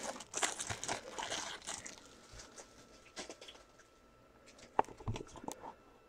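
Crinkling and crackling of packaging as a sealed trading-card box is unwrapped and opened, loudest at first and then fading to light rustling, with one sharp tap about five seconds in.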